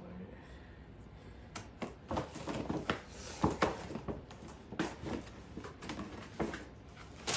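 A Christmas present being unwrapped: irregular crinkling and tearing of wrapping paper and handling of a cardboard gift box, starting about a second and a half in.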